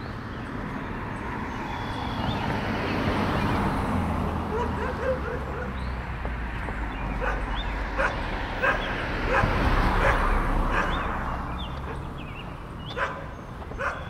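A dog barking in short, separate barks: a few around the middle and a couple more near the end. Under them, a low rumble and noise swell up and fade through the middle.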